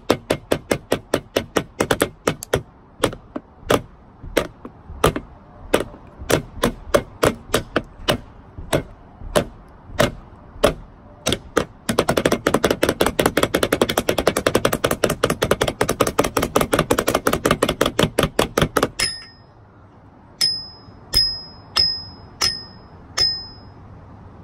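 Makeshift drum solo: sticks striking plastic flying discs, irregular hits two or three a second, then a fast roll lasting about seven seconds from halfway in. Near the end come about six slower strikes that each ring with a high tone.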